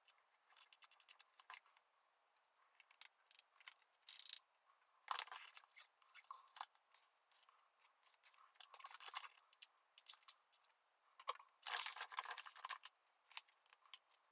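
Faint, intermittent scraping, rustling and small clicks of hands working with materials, in several noisy bursts of about a second each, the loudest a couple of seconds before the end.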